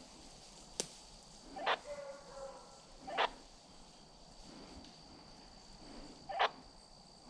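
Faint, short barks from hunting hounds running in the woods, three single barks a second and a half to three seconds apart, with a sharp click about a second in. A faint steady high whine runs underneath.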